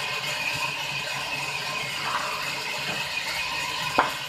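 Sawmill band saw running with no wood in the cut: a steady whir with a high ringing tone, and one sharp knock about four seconds in.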